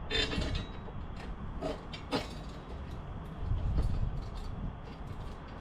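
A few light metal clicks and knocks as the bolts and washers for a motorcycle rear rack are handled and started into their mounting holes, over a low steady rumble.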